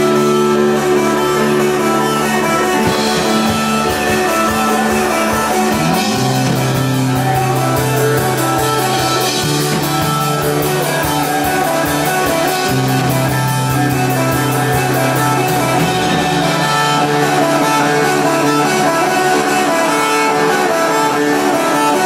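Live rock band playing an instrumental passage on electric guitar, electric bass and drum kit, with long held bass notes changing every few seconds under steady cymbals.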